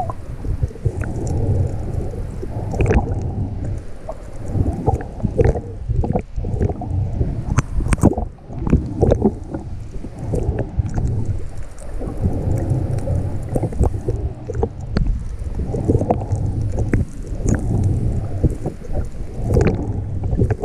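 Muffled underwater rumble and water movement picked up by a GoPro in its waterproof housing on a snorkel mask, swelling and fading every few seconds, with scattered short clicks and pops.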